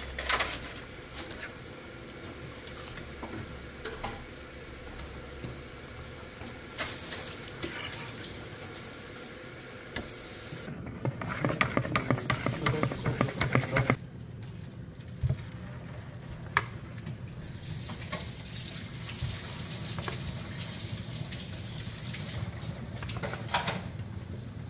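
Kitchen work with water running from a tap into a sink, in several short cuts that change abruptly. Between about 11 and 14 seconds in there is a louder stretch of dense clatter and splashing.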